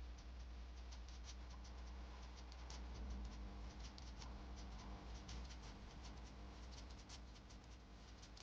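Faint, irregular light clicks and scratches, several a second, over a steady low hum.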